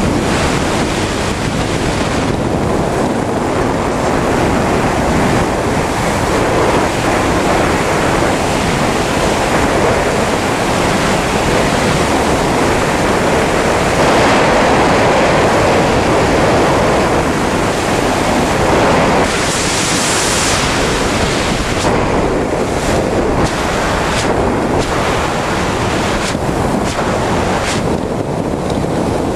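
Air rushing over the camera's microphone of a wingsuit flyer in high-speed flight, a loud steady wind noise with no tones in it. It swells a little in the middle and turns briefly hissier about twenty seconds in.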